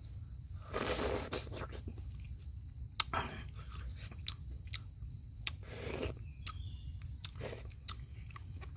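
A person eating balut egg with broth from a spoon: sipping and chewing sounds, louder about a second in and again around six seconds.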